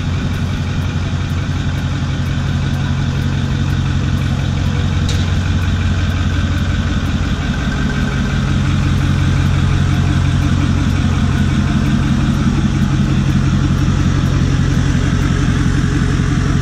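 Ford Super Duty pickup's engine running steadily at low speed as the truck pulls out, a little louder from about halfway through.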